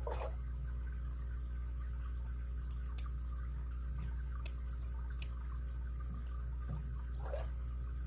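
Light, sharp metallic ticks from a lock pick working the pin stacks of a brass Yale 7-pin padlock while tension is held on the core. There are about seven, irregularly spaced, the loudest about halfway through, over a steady low hum.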